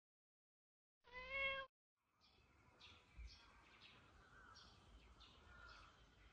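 A cat meows once, about a second in: a single call of roughly half a second that rises slightly in pitch and then holds. Faint outdoor background with a few short, high chirps follows.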